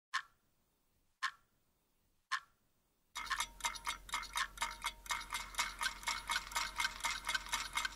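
Clock ticking, one sharp tick about every second, then from about three seconds in a faster, denser ticking, some five a second, over a steady ringing tone and a low hum.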